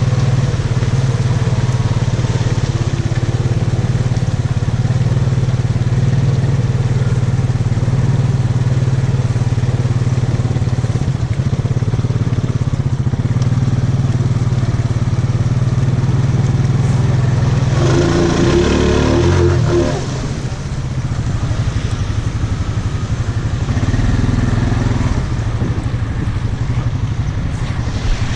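ATV engine running at a steady, even pitch while the quad rides along a muddy trail. About two-thirds through there is a brief louder flurry, after which the engine runs somewhat quieter.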